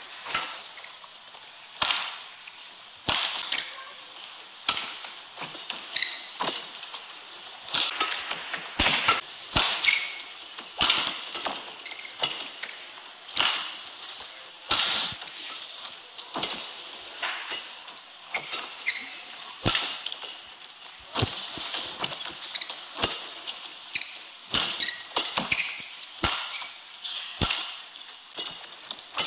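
Badminton rallies: sharp racket strikes on the shuttlecock at irregular intervals, with shoes squeaking on the court mat and a steady arena hubbub underneath.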